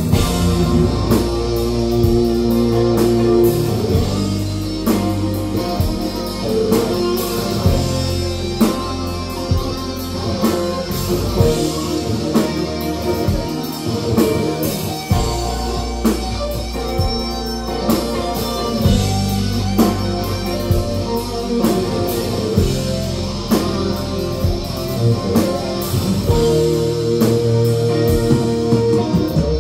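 Live rock band playing: electric guitars holding sustained notes over a drum kit, with the drums hitting at a steady beat.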